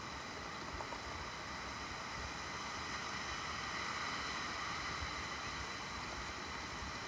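Ocean surf washing up the beach: a steady hiss of breaking whitewater that grows a little louder about halfway through, as a wave runs into the shallows.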